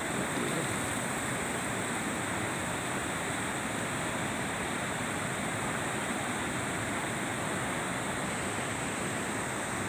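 Steady rush of flowing river water, an even noise that does not change.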